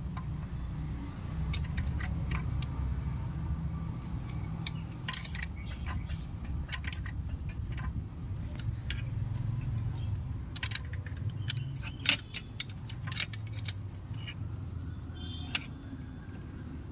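Metal hand tools clinking and clicking irregularly as a ratchet and ring spanner are worked on a timing-belt tensioner nut while the belt tension is set, over a steady low hum.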